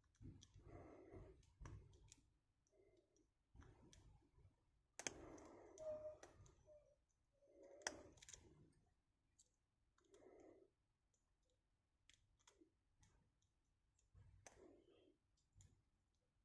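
Faint, irregular clicks of a lock pick and tension wrench working the pins inside a Kasp 40 mm aluminium padlock.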